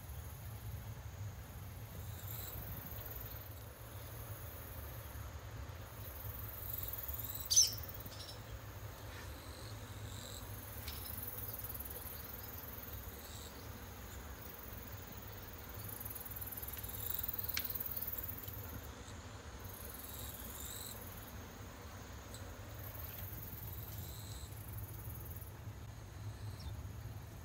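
Outdoor summer ambience: high-pitched insect chirring that comes and goes every couple of seconds over a steady low rumble. Two short, sharp high chirps, the loudest about a quarter of the way in and a fainter one past the middle.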